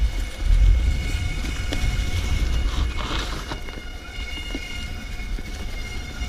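Mountain bike brakes squealing in a steady high-pitched whine with several overtones, over low wind rumble on the microphone.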